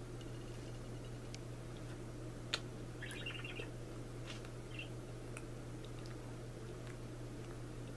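Quiet room tone with a steady low hum, a single sharp click about two and a half seconds in, and a few faint high chirps just after three seconds.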